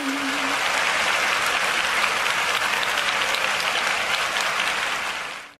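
Theatre audience applauding: steady massed clapping, with the last held note of the music dying away in the first half-second, and the applause fading out quickly at the very end.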